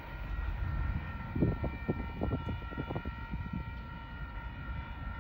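Distant Union Pacific diesel locomotive air horn holding one long, steady chord, over irregular low rumbling.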